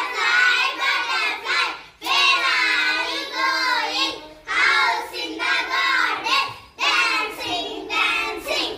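A small group of children singing a butterfly action rhyme together, in short phrases of about two seconds with brief breaks between them.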